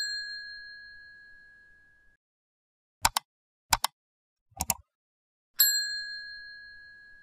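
A bright bell ding rings out and fades over about two seconds, then three quick double mouse clicks, then a second identical ding near the end: the sound effects of an animated like-and-subscribe end screen as the cursor clicks the bell and like buttons.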